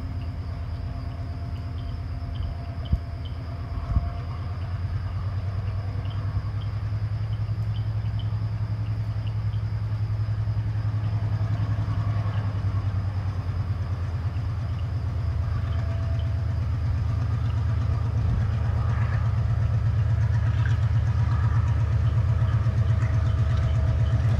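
Diesel locomotive engine running as the train approaches, a steady low pulsing rumble that slowly grows louder. There are two sharp knocks about three and four seconds in.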